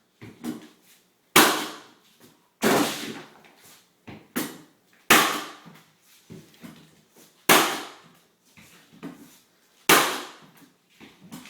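Hardwood flooring nailer struck with a mallet, driving nails into the edge of hardwood floorboards. Five loud, sharp bangs about two and a half seconds apart, with quieter knocks in between.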